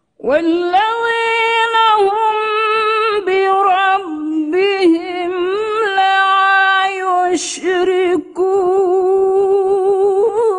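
A woman reciting the Quran in the melodic tilawah style: long held, ornamented notes that wind up and down in pitch, with a short break about eight seconds in before the next phrase.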